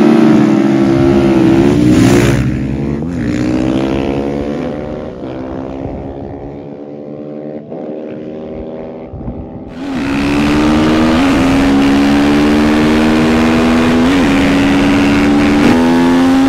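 Two single-cylinder supermoto motorcycles, a KTM 450 SMR and a Sherco 500, accelerating hard side by side. Their engine note rises and drops at each upshift and fades as they pull away. About ten seconds in, one bike is heard close up from on board, running hard and shifting up a few times.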